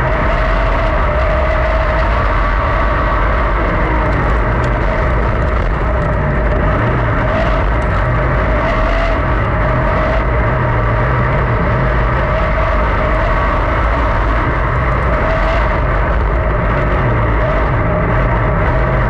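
A 410 sprint car's V8 engine running at a fairly steady pitch, heard from inside the cockpit as the car runs on the dirt track.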